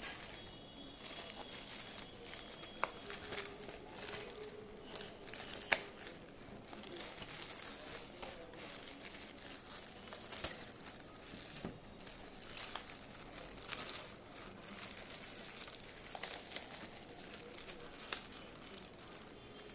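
Plastic courier mailer bag crinkling and rustling as it is handled and opened, with scattered sharp crackles, the loudest about 3 and 6 seconds in.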